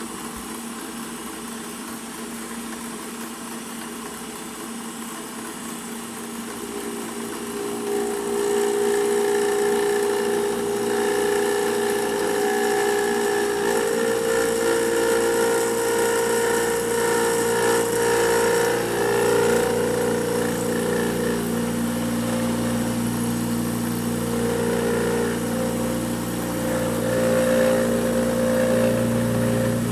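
Milling machine running with its end mill cutting into a round tube as the table is fed by hand. It is a steady machine hum with whining tones that grows louder about eight seconds in, as the cutter bites, and its pitch shifts over the pass.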